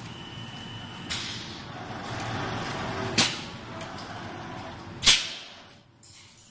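Bread and cream-cake filling machine running steadily, with a hiss that sets in about a second in and two sharp bursts of hiss about two seconds apart, the second the loudest; the noise dies away near the end.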